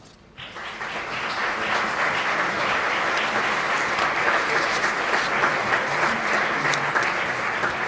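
Audience applauding, many hands clapping together; the applause rises about half a second in and then holds steady.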